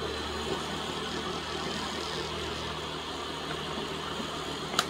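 Countertop blender motor running steadily, chopping cooked chicken pieces, with a sharp click near the end. The chicken is being blended down into a puree rather than shredded.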